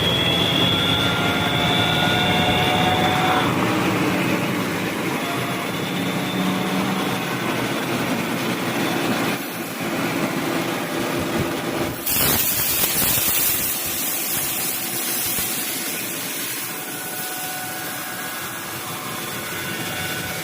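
Rear differential of a 2021 Genesis humming while the car drives, heard over road noise: steady whining tones that shift slightly in pitch and fade after a few seconds, with a sudden rise in hiss about 12 seconds in. The hum comes on under throttle, which the mechanic thinks may be a worn pinion bearing.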